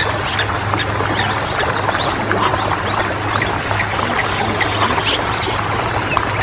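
Dense chatter of many birds calling at once, short overlapping calls, over a steady low hum.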